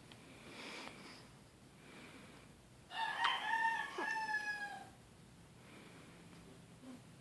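A rooster crows once about three seconds in: a single call of about two seconds that sags slightly in pitch at the end. Faint snoring breaths can be heard around it.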